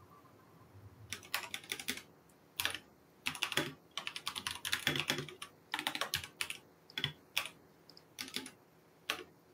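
Typing on a computer keyboard: keystrokes in quick bursts with short pauses between them, starting about a second in.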